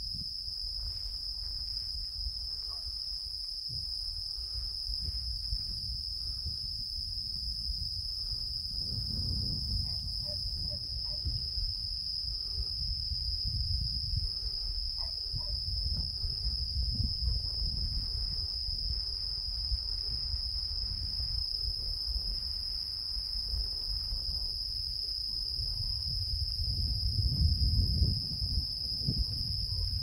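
Insects chirring in one steady high-pitched trill, with wind rumbling on the microphone, louder in gusts near the end.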